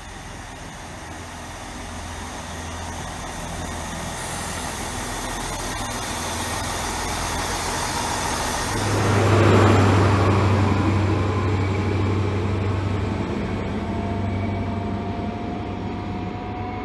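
GWR Class 165 diesel multiple unit's underfloor diesel engines working as it pulls out and passes close by. The engine sound builds steadily, is loudest about nine to ten seconds in as the train goes past, then eases off while a rising whine comes in as it picks up speed.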